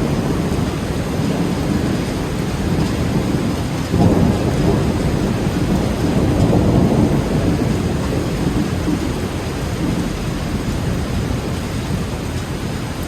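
Rolling thunder over steady rain: a fresh peal breaks in suddenly about four seconds in and the rumble slowly dies down, then the sound cuts off abruptly at the end.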